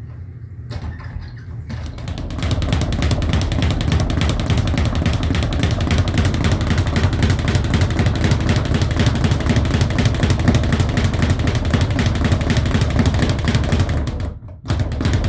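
Speed bag punched fast against a plywood rebound platform: a rapid, continuous drumroll of strikes that gets loud about two seconds in and breaks off briefly near the end.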